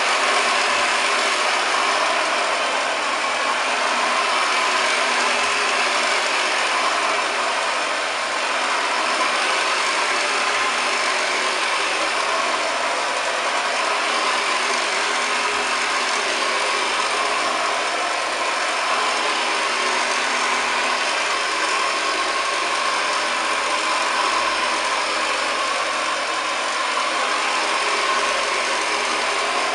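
1929 Hoover Model 725 upright vacuum cleaner running steadily over carpet, its motor and brush humming evenly.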